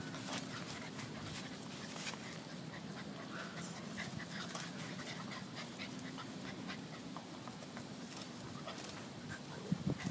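Beagle panting close to the microphone, with scattered light clicks and rustles.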